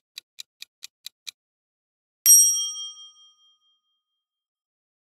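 Countdown-timer sound effect ticking, about four ticks a second, stopping about a second and a half in. Then a single bright bell-like ding rings out and fades over about a second, marking the end of the countdown and the reveal of the result.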